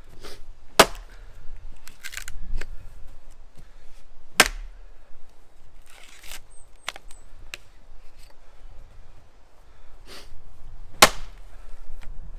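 Axe chopping wood: three sharp, loud blows, spaced a few seconds apart, with quieter knocks and rustling in between.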